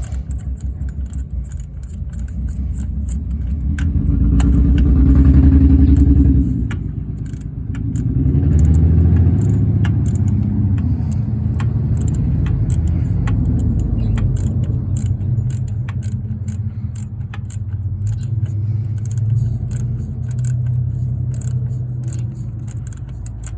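A motor vehicle engine running, its speed rising about four seconds in, dropping briefly near seven seconds and picking up again, with light metallic clicks over it.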